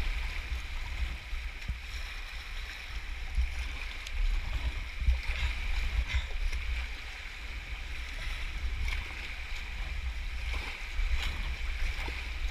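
Fast tidal white water rushing and churning around a sea kayak's hull as it is paddled through a narrow bridge arch, with a steady low rumble and a few sharper splashes from paddle strokes.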